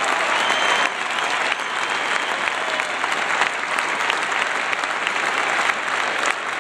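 A large arena audience applauding steadily, a dense wash of thousands of hands clapping in a standing ovation.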